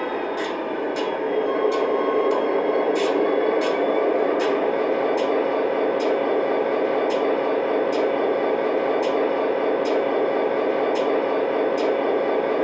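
Steady hiss from an O scale model train's onboard sound system while the train stands, swelling slightly about a second and a half in. Short sharp clicks come through it roughly every half-second.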